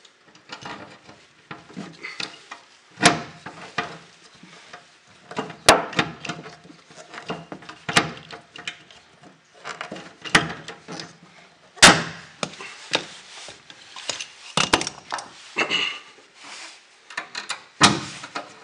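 Hand pop-rivet gun being squeezed to set steel rivets through a sheet-metal patch: handling clicks and scrapes, broken by sharp snaps a few seconds apart as the rivet mandrels break off.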